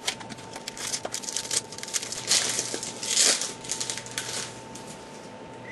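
Wrapper of a pack of baseball trading cards crinkling and tearing as it is pulled open by hand. The crackle is loudest in the middle and thins out near the end.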